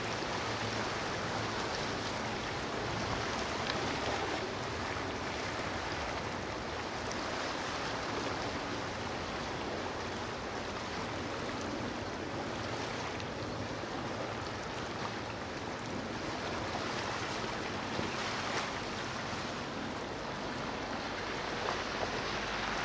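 Steady rushing of waves and wind, with no distinct boat engine standing out.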